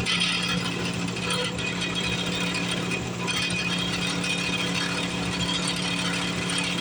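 Northern Tool 8-inch bench drill press, set at 2100 RPM and used as a mill, running steadily while a used 3/16-inch four-flute end mill takes a deeper cut in scrap aluminium: a constant motor and belt hum under a rough, rattling cutting noise.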